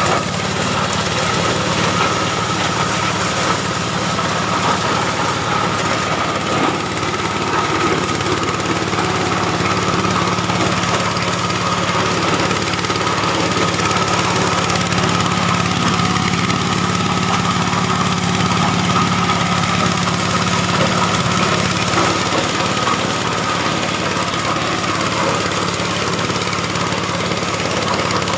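Engine-driven corn sheller (SM-10 type) running steadily, its engine and threshing drum making an even, continuous mechanical drone with a high whine in it.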